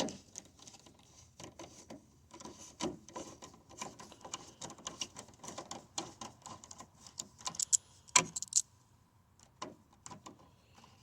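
Irregular small metallic clicks and rattles of Torx screws and a screwdriver being handled while the screws holding a tail light assembly are taken out, with a sharper knock about eight seconds in.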